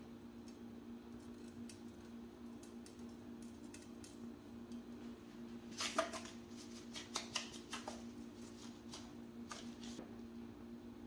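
A seasoning shaker shaken over a frying pan of chicken: a sharp clatter about halfway through, then a quick run of shakes and clicks for a few seconds. A steady low hum sounds underneath.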